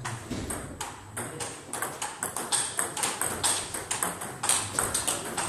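Table tennis rally: the ball clicking sharply off the rackets and the table, several irregular clicks a second.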